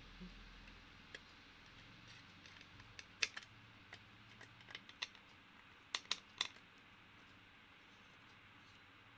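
Scattered sharp clicks and taps of small laptop hardware being handled and pressed into place, with a quick run of three clicks about six seconds in, over a faint steady hum.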